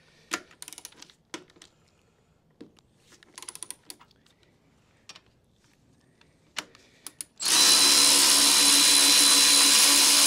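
A few light clicks and taps of tools on the motorcycle's rear suspension, then about seven seconds in a cordless ratchet runs steadily for about four seconds, loosening a mounting bolt of a Harley-Davidson Road King Special's stock rear shock.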